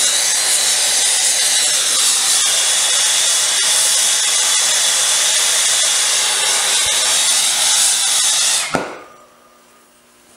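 Acetylene turbo torch flame running with a loud, steady hiss, then cutting off abruptly a little before the end, leaving a faint hum.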